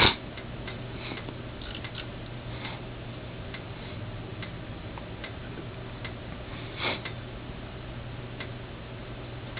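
Steady low hum with light, dry ticks about once a second, from a reflow oven cooling down from soldering temperature.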